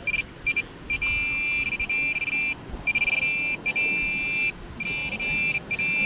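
Metal detector sounding a single steady, high-pitched tone in repeated on-off bursts, from short blips to stretches of about a second and a half, as the coil passes over a metal target in the dig hole.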